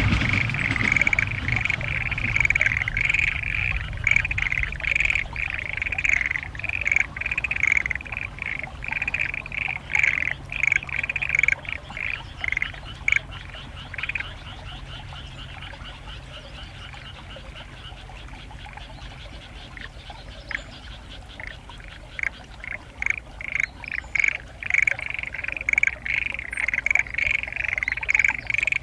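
Chorus of frogs in a flooded rice paddy: dense, rapid croaking that thins to scattered calls midway and then swells back to a full chorus near the end. The recordist takes them to be mostly black-spotted pond frogs, with perhaps other species among them.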